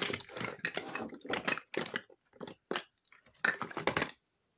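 Rustling and crunching handling noise close to a phone's microphone, as clothing and hair rub against it in irregular bursts that stop about four seconds in.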